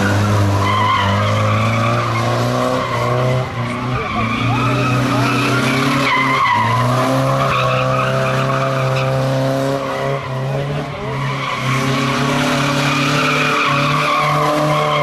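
Classic BMW 02-series saloon doing doughnuts on tarmac: engine held at high revs with the rear tyres squealing continuously. The revs dip briefly twice.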